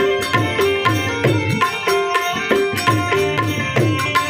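Instrumental interlude of a Gujarati devotional dhun: a harmonium melody of held notes over a steady hand-drum rhythm, whose bass strokes bend in pitch.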